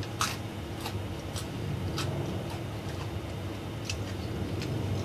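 Eating noodles with chopsticks: irregular light clicks, about one every half second, from the chopsticks tapping the plate and from chewing, over a low steady hum.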